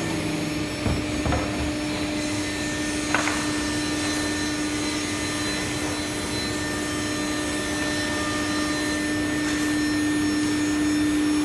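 CNC wood router running: a steady mechanical hum with a constant whine, plus a few short knocks about one and three seconds in.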